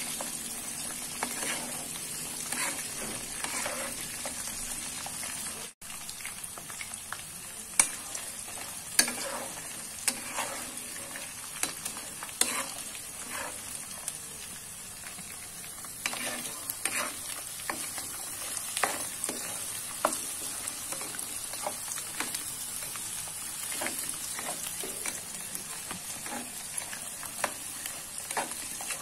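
Kabau beans frying in hot oil in a wok with a steady sizzle. A spatula scrapes and clacks against the pan at irregular intervals as the pieces are stirred.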